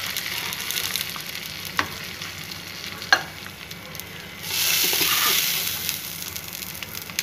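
Hot tempering oil with cumin seeds, curry leaves and whole dried red chillies sizzling on yogurt raita, a steady hiss that grows louder for about a second around the middle. Two sharp clicks come about two and three seconds in.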